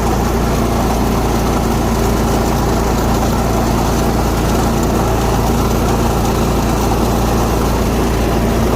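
Cub Cadet riding lawn mower's engine running steadily at an even speed.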